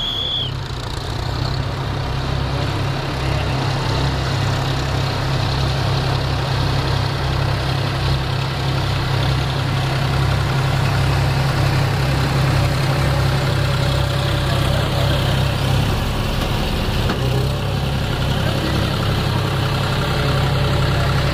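Diesel farm tractor engines running steadily as a low drone while the tractors work through a flooded, muddy field.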